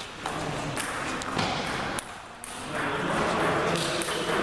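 Table tennis ball being struck by paddles and bouncing on the table in a rally: a few sharp clicks in the first two seconds. After the rally ends, voices in the hall take over.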